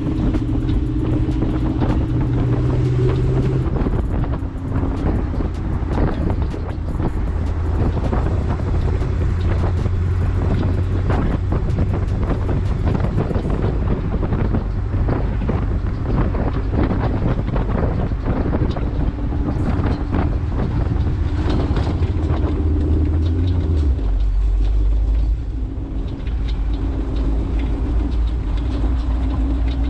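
Jeep CJ-7 driving on an off-road trail: a steady engine note that drops in pitch about three-quarters of the way through, with frequent knocks and rattles from the bumpy ground and some wind on the microphone.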